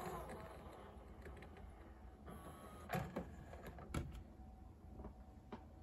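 Faint scattered mechanical clicks, with a few sharper knocks about three and four seconds in, as the disc-select jog dial on a Sony CPD-M555ES 400-CD changer is turned.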